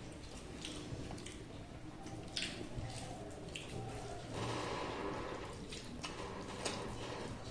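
Close-up eating sounds: fingers mixing rice and curry on steel plates, with small wet clicks, squelches and mouth smacks. There is a longer wet rustle a little past the middle.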